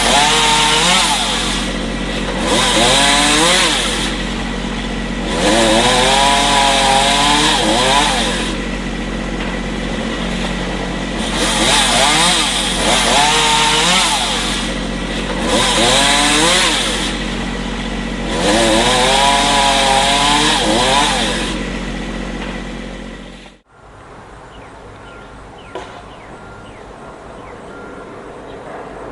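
Motorized saw cutting branches in about six loud bursts a few seconds apart, its engine pitch wavering as it works, over a steady idling engine hum. About 23 seconds in the sound cuts off abruptly, leaving quieter outdoor background.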